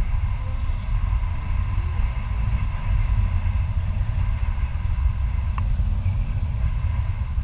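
Wind buffeting the microphone during a paraglider flight: a steady, fluctuating low rumble with faint steady whistling tones above it and a single small click near the end.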